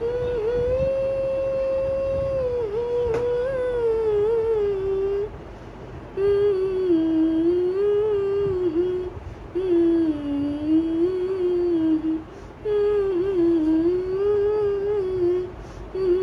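A woman humming a song tune with her mouth closed, in four phrases with short breath pauses between them; the first note is held for a couple of seconds before the melody rises and falls. Her face is wrapped tightly in a dupatta.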